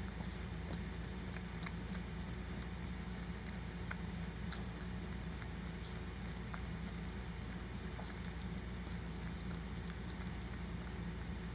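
Small wet clicks and smacks from a Maltese mother licking and cleaning her newborn puppy, scattered and irregular, over a steady low hum.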